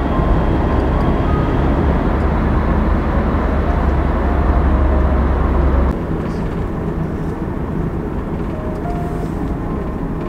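Road and engine noise inside a moving car's cabin: a heavy, steady low rumble while driving through a road tunnel, which drops abruptly about six seconds in to a lighter steady road noise.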